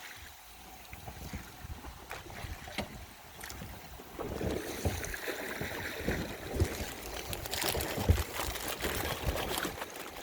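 Water sloshing and splashing around a small boat on a river, with scattered knocks. It grows louder about four seconds in.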